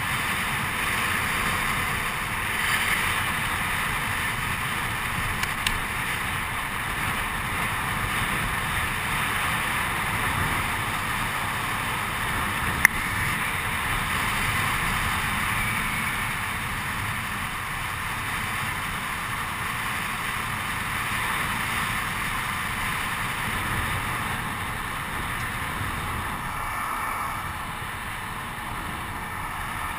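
Wind rushing over the microphone and longboard wheels rolling fast on asphalt during a downhill run, a steady rushing noise. A single sharp click about thirteen seconds in.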